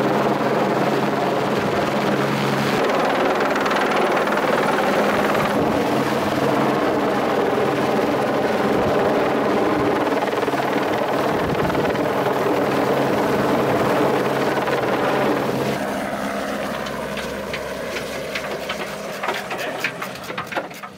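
Helicopter hovering close overhead with a slung load: steady rotor and turbine noise that fades after about fifteen seconds as it moves away. A quick run of sharp knocks comes near the end.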